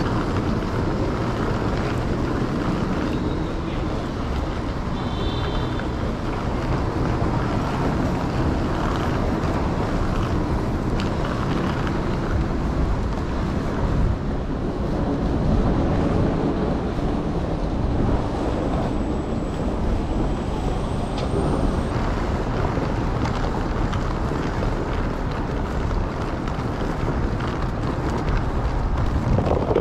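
Steady outdoor rumble of traffic with wind buffeting the microphone. A brief high-pitched tone sounds about five seconds in.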